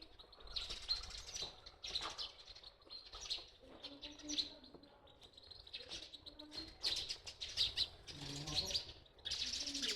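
Many small birds chirping and twittering, with overlapping calls and some lower, shorter calls mixed in.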